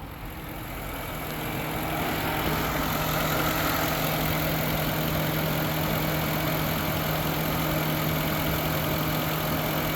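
Car engine idling steadily under the hood, turning a high-output JS alternator. It grows louder over the first couple of seconds, then holds an even level.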